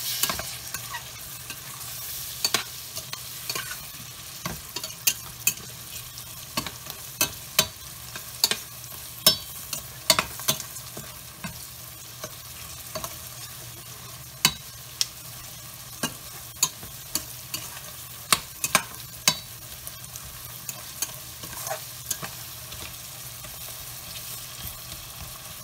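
Metal spatula scraping and clinking irregularly against a stainless steel pot as tomatoes and spice paste are stirred and fried, over a steady sizzle: the masala being sautéed down.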